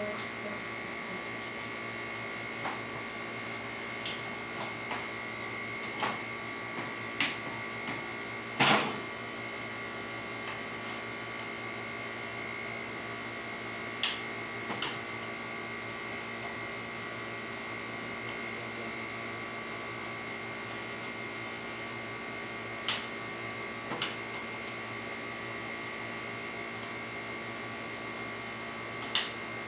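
Steady electrical or machine hum made of several fixed tones, with a dozen or so short sharp clicks and knocks scattered through it, the loudest about nine seconds in.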